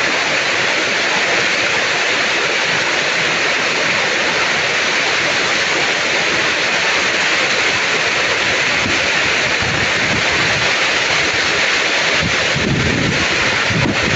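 Heavy jungle rain falling, a steady dense hiss. A low rumble joins it near the end.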